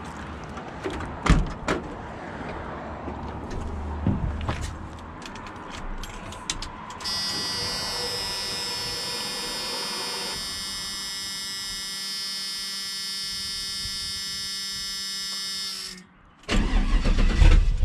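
Chevrolet C10 pickup being started: door and key clicks, then a steady electric whine for about nine seconds with the ignition switched on. The whine stops abruptly and the engine cranks and starts loudly near the end.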